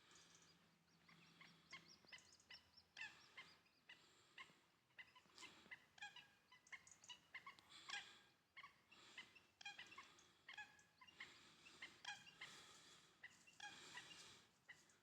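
Birds peeping: many short, high calls in quick succession, several overlapping.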